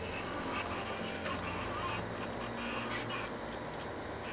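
Canvas of a square sail rustling and rubbing in irregular scrapes as it is pushed and gathered by hand on the yard, over a steady low hum.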